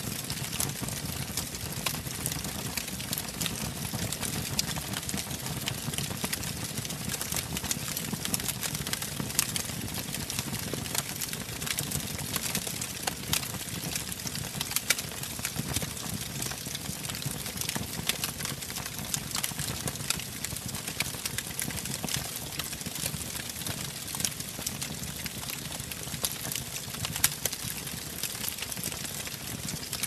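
Wood fire burning in a fireplace: steady low flame noise with frequent sharp, irregular crackles and pops from the burning wood.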